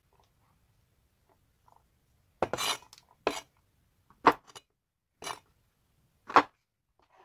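Kitchen knife cutting mini king oyster mushrooms on a wooden cutting board: five chops about a second apart, starting about two and a half seconds in, the first a little drawn out.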